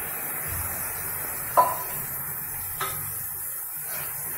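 Cooked dal hitting a hot kadai of fried masala and sizzling steadily, with a sharp metal clink about one and a half seconds in and a lighter one near three seconds, as a ladle starts stirring.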